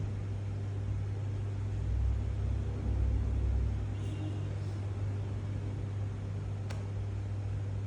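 Steady low hum with an underlying rumble, swelling a little in the middle, and a single sharp click near the end.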